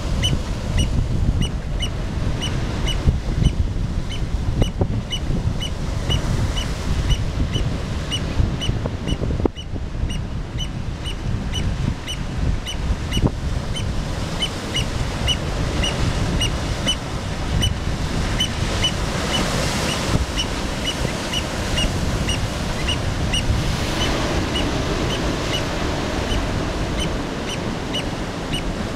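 Black oystercatchers giving a long run of short, high piping whistles, about two or three a second, over the steady wash of surf breaking on a rocky shore.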